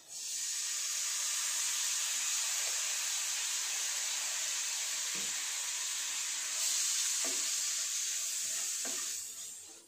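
Fried onion and spice masala in a hot non-stick pan sizzling as a spoonful of soy sauce is poured in: a steady hiss that grows louder for a moment about two-thirds through and fades away near the end. A wooden spatula stirs the mix, knocking softly a few times.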